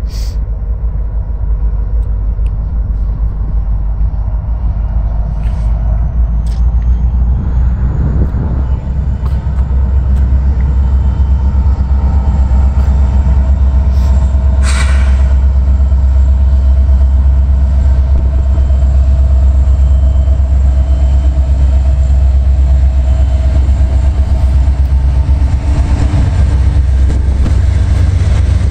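Norfolk Southern diesel freight locomotives approaching slowly and rolling past close by: a deep engine rumble that grows steadily louder and then holds, with a steady whine above it and a brief hiss about halfway through.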